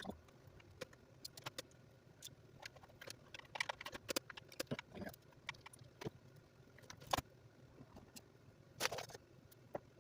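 Irregular light clicks and clatter of small parts and hand tools being handled during a repair, with a sharper knock about seven seconds in and a short rattle near the end.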